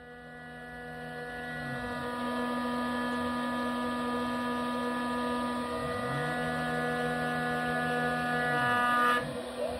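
Small CNC milling machine running a chamfer pass on a metal plate. The spindle gives a steady whine, and a lower axis-motor tone slides down and stops about two seconds in, slides back up around six seconds, and slides down again near nine seconds as the table moves and halts.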